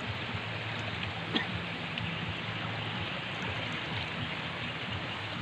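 Swollen, fast-flowing river rushing steadily, with a faint low hum beneath it and one light click about a second and a half in.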